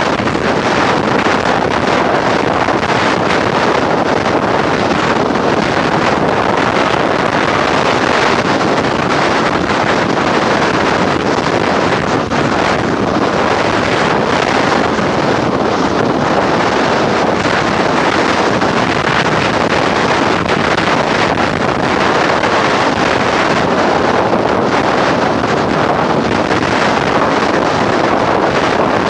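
Storm wind from Hurricane Isabel blowing across the camcorder microphone: a loud, steady rushing noise that keeps up without a break.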